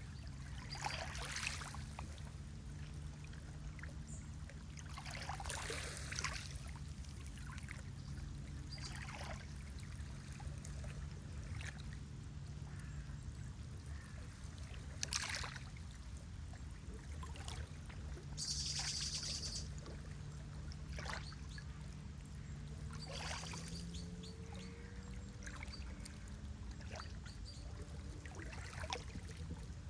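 Lake water lapping and splashing in small irregular waves every few seconds over a low steady rumble, with a brief high hiss about two-thirds of the way through.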